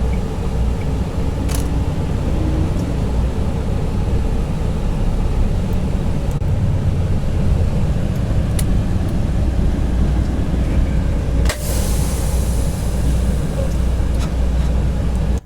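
Semi-truck diesel engine running, heard as a steady low rumble inside the cab. About two-thirds of the way through there is a sharp click followed by a short hiss, and the rumble drops off suddenly at the very end.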